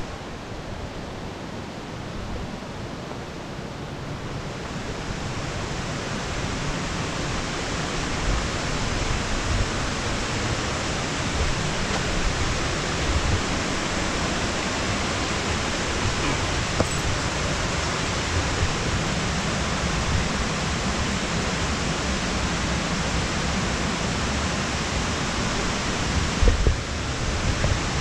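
Steady rushing of a mountain creek's falling water, growing louder over the first several seconds and then holding, with a few knocks near the end.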